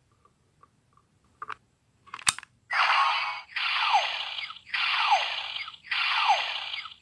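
Light plastic clicks as a Hero Piece figure is slotted into the Legend Hero Ganwu Changer DX toy, then a sharp click as it seats. The changer then plays an electronic sound effect that repeats four times, each a noisy burst with a falling tone, about once a second.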